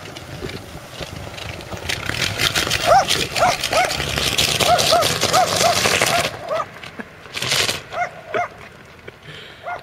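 Car exhaust blowing through a bicycle inner tube stretched over the tail pipe, making a raspy, flapping fart noise. Over it comes a run of short squeals, each rising and falling in pitch, about three a second.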